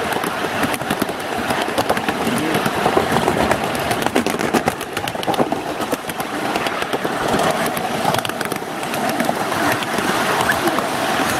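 Ride-on miniature railway cars rolling along the track, a steady rattling rumble with many quick clicks and clacks from the wheels and couplings.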